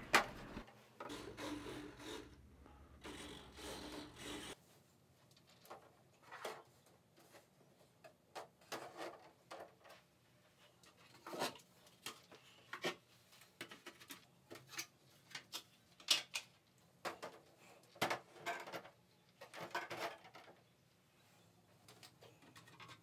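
Faint, scattered rubs and light taps of 3D-printed plastic airplane parts being handled and set down on a wooden workbench.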